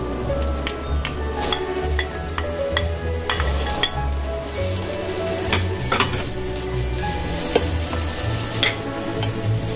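Thin fish cake strips sizzling in oil in a nonstick frying pan while a wooden spatula stirs and scrapes them, with occasional sharp clicks of the spatula against the pan.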